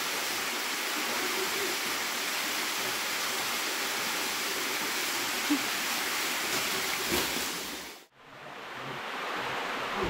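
Waterfall: a steady rush of falling water. About eight seconds in it drops away to near silence, then returns more softly.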